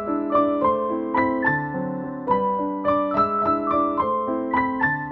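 Background piano music: a gentle melody of struck notes over held chords, a few notes a second.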